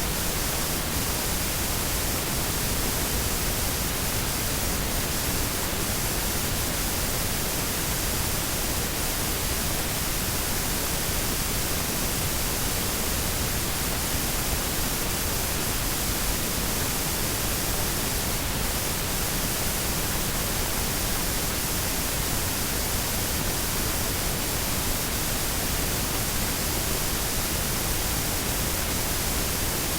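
Washing machine running: an even, steady rushing hiss with no rhythm or changes.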